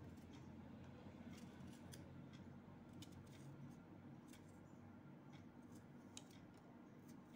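Faint, crisp, irregular snips of a small knife cutting through a cucumber held in the hand, over a low steady hum.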